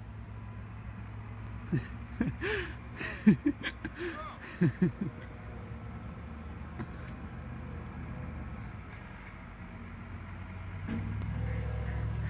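A steady low rumble that grows louder about eleven seconds in, with a string of short, loud cries bending up and down in pitch between about two and five seconds in.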